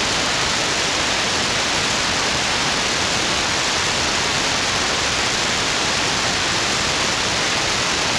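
Steady radio static hiss from an SDRplay RSP1A shortwave receiver tuned to an empty channel around 26.915 MHz in the 11-meter band. No signal is coming through, only even band noise.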